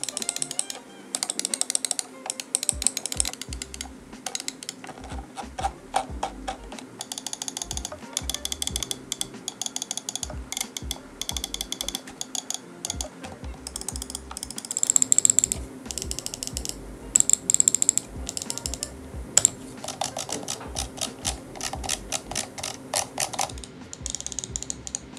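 Computer mouse buttons clicked over and over in quick runs for a click-sound comparison, including the AKKO AG325's Omron blue-dot 50-million-click microswitches, which sound fairly crisp.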